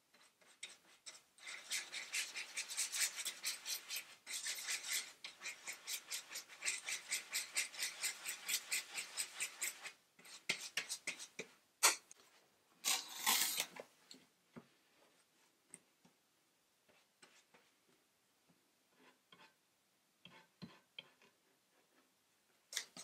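Stiff glue brush scrubbing back and forth through wood glue on a piece of cardboard: a quick rasping stroke about four times a second for several seconds. It stops, followed by a sharp click, a short scrape and a few faint taps.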